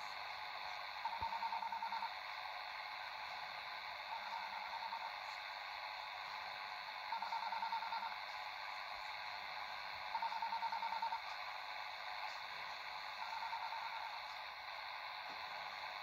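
A shortwave radio in AM mode, tuned to 6819 kHz, receives an unidentified station's repeating ringtone-like signal over steady static hiss. The signal is a rapidly pulsing tone about a second long, coming back about every three seconds, five times in all.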